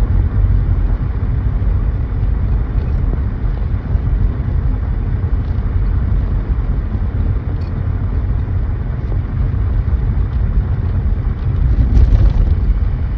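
Steady road and engine rumble of a moving car, heard inside the cabin, swelling briefly near the end.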